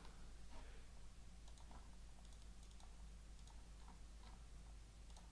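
Near silence with faint, scattered small clicks and a low steady hum.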